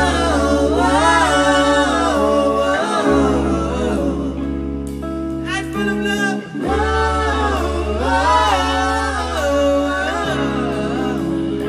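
Live band performing with a lead vocalist: long sung phrases with vibrato over the band's steady backing of electric guitars and keyboard, with sustained low notes underneath.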